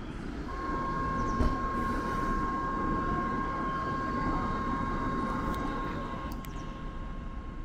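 Kintetsu electric train moving slowly out of the station: a low rumble that swells and then eases off, with a steady high tone over most of it and a single sharp clack about a second and a half in.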